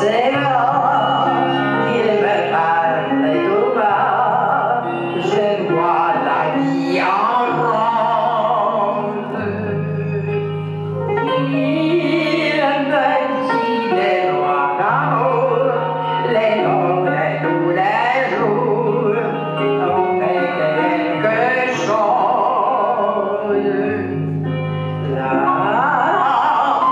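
Music with a wavering, operatic-style sung line over long held bass notes.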